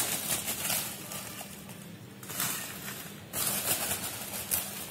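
Plastic bag crinkling and dried red chillies rustling as a hand grabs them from the bag, louder in two stretches in the second half.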